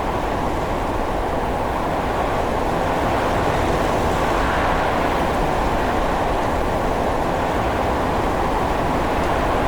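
Strong wind sound effect: a steady, deep rush of wind, even and unbroken, with no single gust standing out.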